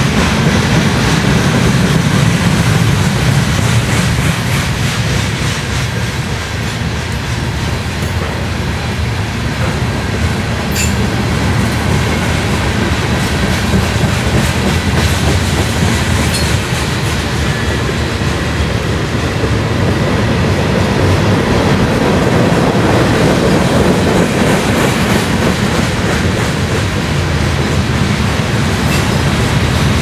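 Mixed freight train's cars (covered hoppers, boxcars, a tank car) rolling past close by, their steel wheels running on the rails in a loud, steady noise that swells and eases slightly as the cars go by.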